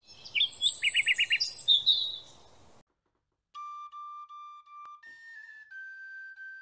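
A burst of bird chirps and quick trills, then after a short silence a slow melody on a flute-like instrument, long held notes stepping from one pitch to the next.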